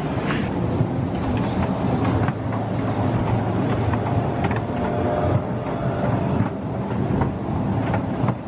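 Small ride-on kiddie train running along its rails: a steady rumble and rattle of the cars in motion, with a few faint clicks.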